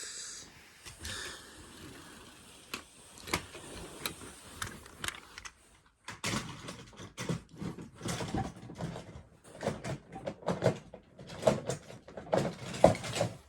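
Toy cars being handled and moved, with scattered clicks and knocks that turn into a denser run of clattering about halfway through, loudest near the end.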